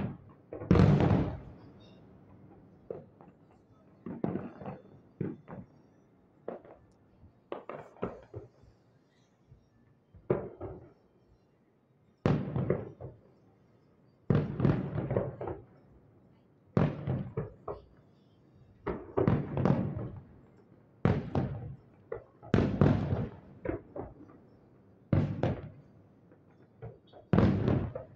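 Aerial fireworks shells bursting some way off: a sharp boom every second or two, each one trailing away in a short rolling echo.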